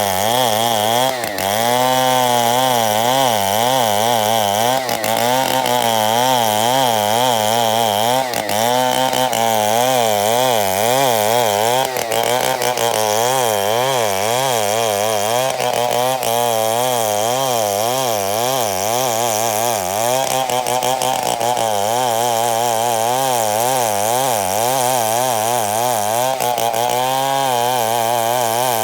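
Two-stroke chainsaw running continuously while cutting oda wood, its engine pitch wavering up and down as the load on the chain changes.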